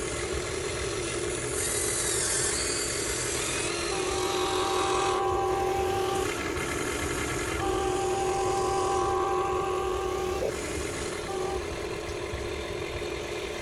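Huina 1593 RC excavator's electric motors and gearboxes whirring and grinding as the model works, with a steady whine that comes in twice for two or three seconds at a time as a function is driven.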